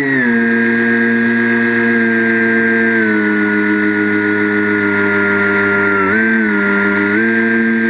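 Model airplane's motor and propeller heard from a camera mounted on the plane, a steady whine whose pitch drops just after the start and again about three seconds in, dips briefly near six seconds, then rises back as the throttle changes.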